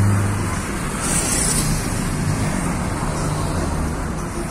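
Road traffic passing steadily, a continuous rush of cars. A vehicle's low engine hum fades away within the first second, and a brief high hiss comes about a second in.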